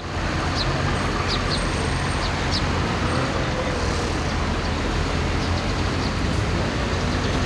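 Steady engine rumble of heavy machinery and traffic, with a few short high chirps in the first few seconds.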